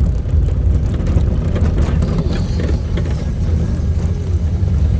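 Steady low rumble of a motorcycle on the move: engine and road noise mixed with wind buffeting the microphone.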